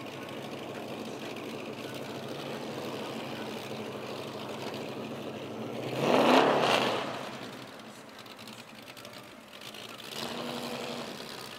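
An engine running steadily, then revving up loudly about six seconds in, its pitch rising before it fades away; a second, quieter engine swell comes near the end.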